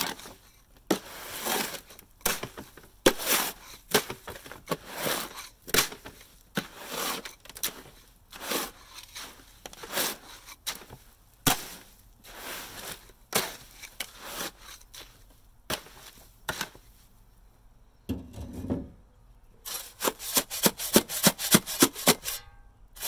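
Steel shovel scraping and chopping through damp concrete mix in a plastic wheelbarrow, one or two strokes a second, while the concrete is being mixed. Near the end, quicker scraping strokes of a metal hand trowel working the mix, about four a second.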